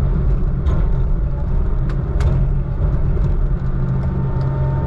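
Heavy diesel engine running steadily, with a few sharp knocks or rattles about two seconds in.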